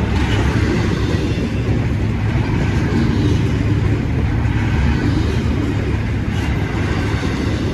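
Freight train rolling past: a steady, loud low rumble with no breaks.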